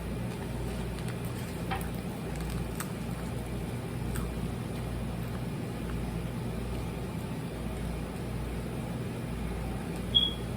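Air fryer running with a steady fan hum and a slowly pulsing low drone. A single short, high beep sounds near the end.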